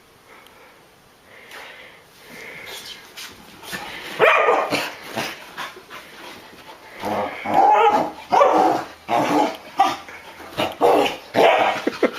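A dog barking in a run of short, loud calls, starting about four seconds in after a quieter stretch.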